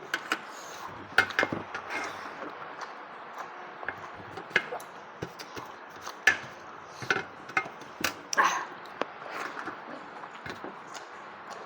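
Close-up eating sounds of a person chewing and biting on cooked goat legs: irregular sharp cracks, smacks and crunches, about a dozen of them.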